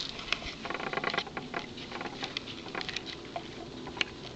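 Handling noise from a handheld camera being carried: irregular light clicks and rustles, with a denser crackling stretch about a second in.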